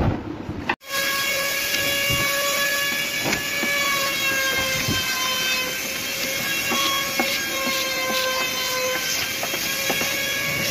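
A steady machine whine with a clear pitch, drifting slightly lower and back up, begins abruptly about a second in. Faint short scrapes from a plastic spreader working contact cement across a board sound over it.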